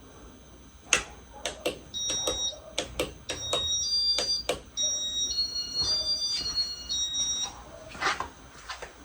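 Sharp clicks, then a run of steady high electronic beeps, two tones at once, that change pitch about every half second for several seconds.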